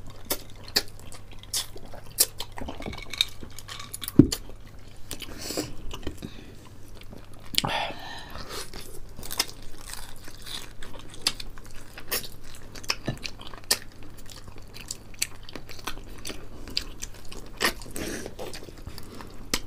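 Close-miked chewing and crunching of crispy fried chicken, with many small crisp crackles and wet mouth clicks scattered throughout.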